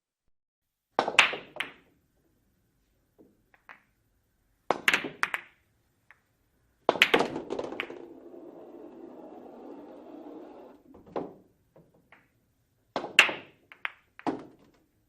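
Billiard balls clacking together in short clusters of sharp clicks, about four times. After the third cluster comes a few seconds of low rolling rumble from balls rolling, then a knock.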